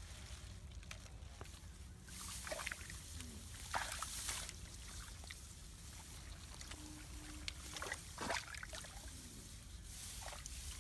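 Hands groping in shallow muddy water, with soft sloshes, small splashes and squelches of mud at irregular moments.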